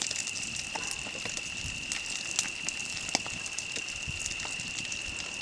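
Campfire crackling, with scattered sharp pops and snaps, over a steady high-pitched tone.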